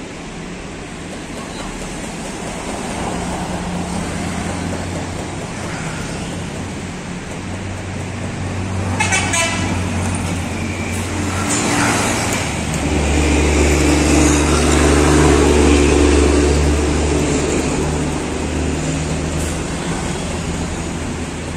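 Mercedes-Benz OH 1626 coach's six-cylinder diesel engine pulling away from a standstill. It grows louder and fuller about halfway through, then eases off, with road traffic passing close by.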